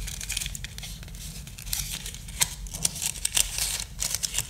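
White card-and-paper packaging being handled as a phone charger is worked out of its insert: irregular rustling and crinkling, with many small clicks and taps.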